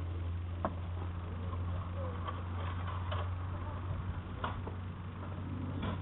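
A steady low engine hum, with a handful of short knocks and clatters from plywood boards being carried and set down.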